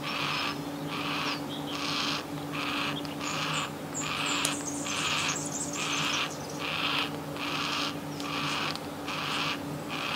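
Juvenile yellow-tailed black cockatoo begging for food: a short, rasping call repeated over and over, about two a second.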